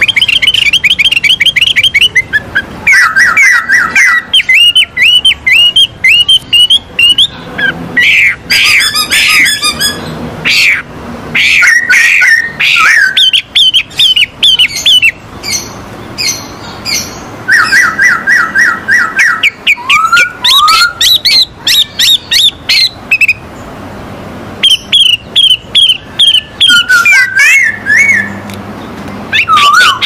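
Caged laughingthrushes, a Chinese hwamei (poksay Hongkong) and a black-throated laughingthrush (wambi), singing loudly. The song comes in phrases of rapid repeated whistled notes, some rising and some falling, with short pauses between phrases.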